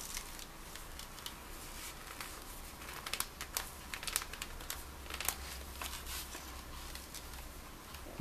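Handling a puukko's leather and wood sheath with cotton-gloved hands: leather rustling and creaking as the retaining loop comes off the handle and the knife is drawn out, a run of small clicks, busiest a few seconds in. A soft low knock at the very end as the sheath is set down on the cloth.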